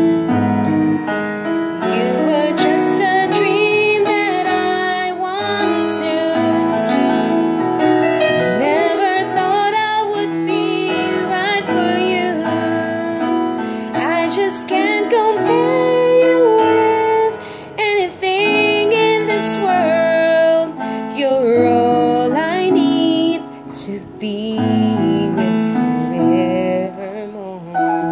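Electronic keyboard playing a slow ballad's instrumental break: held chords with a wavering melody line on top, thinning out with short gaps in the last third.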